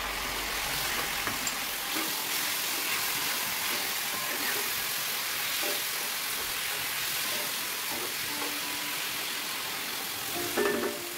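Chopped tomatoes and onions sizzling in a hot cast-iron skillet as a steady hiss, with a wooden spoon scraping and stirring through them.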